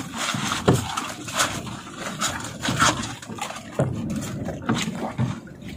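Irregular rustling, clicks and knocks of a fishing net and fresh-caught fish being handled and emptied into a plastic fish box.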